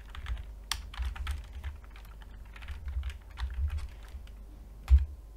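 Typing on a computer keyboard: a quick run of key presses, with one heavier thump about five seconds in.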